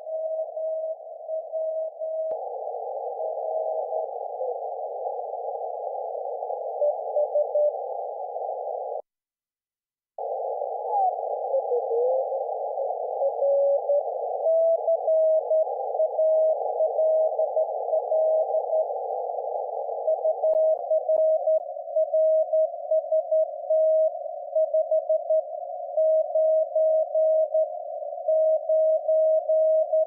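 Morse code (CW) signals on the 40 m band heard through a Kenwood TS-890S receiver's narrow CW filter: short and long beeps of a tone near 650 Hz over a narrow band of hiss. The audio drops out for about a second near ten seconds in, a tone slides downward in pitch as the receiver is tuned, and from about twenty seconds on the hiss narrows as the filter is tightened from 400 to 200 Hz, leaving the keyed beeps standing out more clearly.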